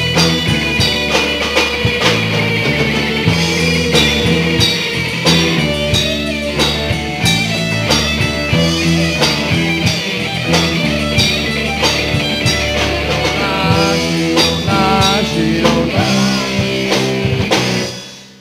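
Live rock band playing, with an electric guitar lead holding and bending long notes over bass and drum kit. The music stops near the end.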